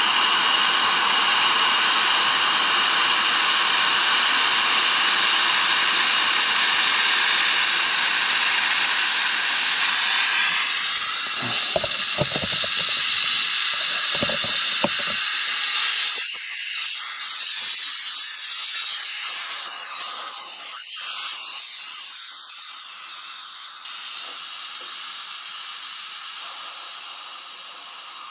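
Compressed air hissing out of a Hatsan Flash PCP air rifle's air cylinder through its opened bleed screw as the cylinder is degassed. The hiss is loud and steady at first, then weakens after about ten seconds and keeps fading as the pressure drops, with a few low knocks about halfway through.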